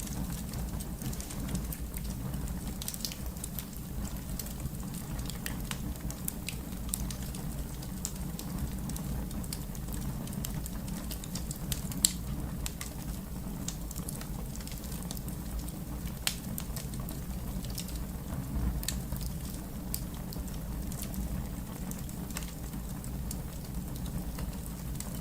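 Wood fire crackling: a steady low rumble of flames with irregular sharp pops and snaps, one much louder pop about halfway through.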